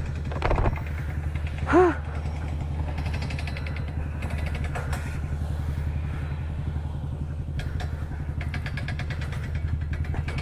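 Motorcycle engine running at a steady, unchanging pitch. About two seconds in comes one short rising-and-falling vocal call, and there are a few light clicks near the start.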